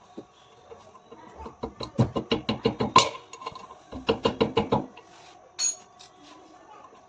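Two runs of rapid metallic clicking, about eight clicks a second, each lasting roughly a second, followed by a single sharp click.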